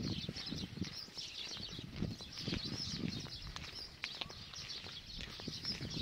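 Footsteps on a dirt lane during a walk, a run of short low thuds, with birds chirping steadily in the background.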